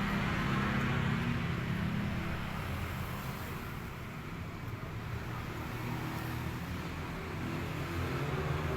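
Small Honda engine running steadily, its speed easing a little about halfway through and picking up again toward the end.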